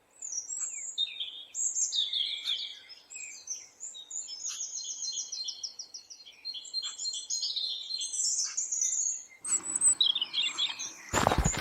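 Several songbirds singing together: overlapping chirps, quick trills and rapid runs of repeated high notes. Near the end a much louder, noisy sound cuts in over the birds.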